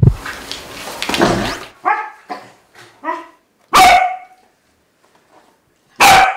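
Welsh corgi barking: a harsh noisy burst at first, then a few short barks, then two loud sharp barks about two seconds apart.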